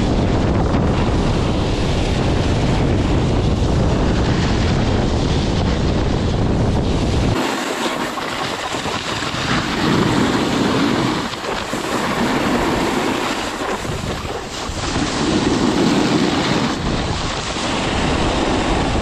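Wind buffeting the microphone with the rushing hiss of skis carving over icy snow. About seven seconds in the low rumble drops away, and the scraping hiss then swells twice.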